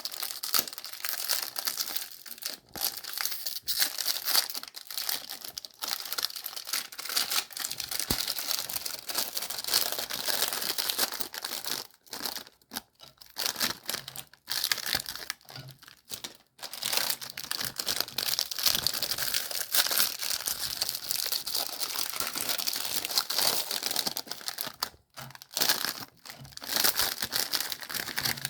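Meat grinder crushing Golden Oreo cookies: a dense, crackling crunch that goes on with a few brief pauses.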